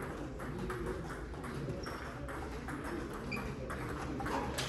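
Table tennis balls clicking off bats and tables in rallies: many sharp, irregularly spaced ticks over a low background murmur.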